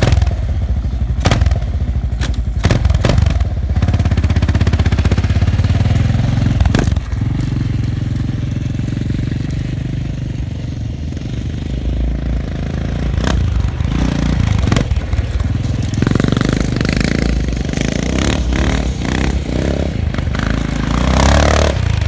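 Kawasaki KLR650 single-cylinder engine in a Polaris Predator 500 quad running, first near the camera, then riding off across the field with the throttle opening and closing. It grows louder again near the end as the quad comes back close by.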